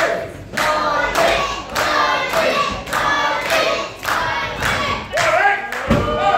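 Young crowd chanting in a sing-song over steady rhythmic clapping, a little under two claps a second, with a heavy thump on the ring near the end.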